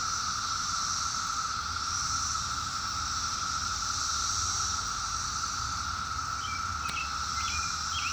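A dense chorus of 17-year periodical cicadas droning: a steady, unbroken high hum, with a few faint short chirps near the end.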